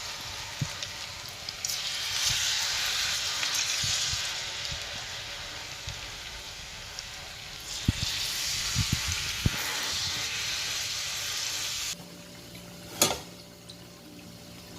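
Batter-coated idli pieces deep-frying in hot oil, a steady sizzle with a few low knocks. About twelve seconds in the sizzle cuts off suddenly, leaving a low hum and one sharp click.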